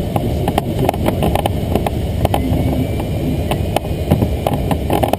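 Air rushing past the canopy of a Duo Discus glider at speed, heard inside the cockpit, with frequent short clicks and knocks from the airframe in bumpy air. Behind it, a faint electronic variometer tone slides slowly up and down in pitch.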